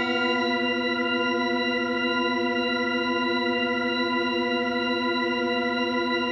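Music: one sustained organ-like keyboard chord, held steady without rhythm or voice.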